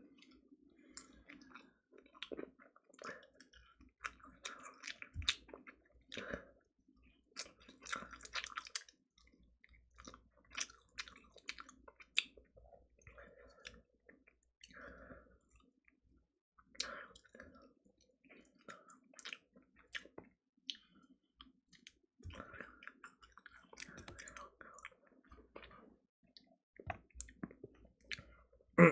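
A person eating fried chicken by hand: soft chewing with scattered small clicks and smacks as the meat is torn from the bone. A sudden loud burst comes right at the very end.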